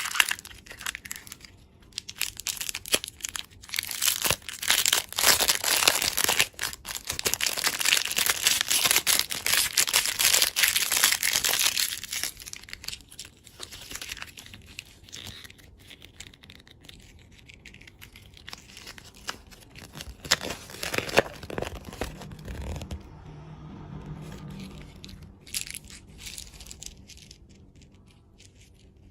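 Plastic candy wrappers being torn open and crinkled, with a long, loud stretch of crackling rustle early on, then softer rustles and scattered clicks.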